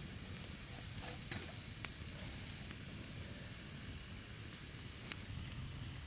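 Campfire of damp wood burning with a steady hiss and sizzle and a few sharp crackles, the loudest about five seconds in.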